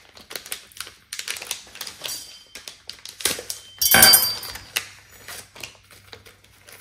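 Quick irregular clicks and taps of containers and utensils being handled while seasoning meat, with one louder rattling clatter about four seconds in.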